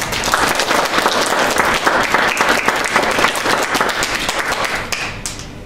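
A group of people applauding, dying away near the end.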